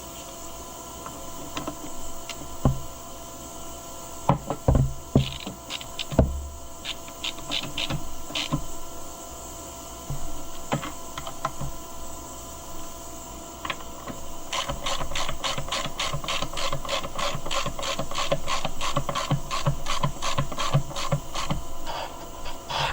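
Hand work on chainsaw parts: scattered metallic knocks and clinks as parts are handled and fitted, then a fast, even run of rasping strokes, about five a second, for several seconds from a little past the middle.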